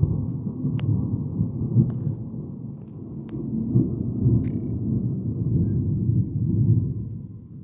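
Thunder: a long low rumble that starts suddenly, rolls on unevenly for about seven seconds and fades near the end.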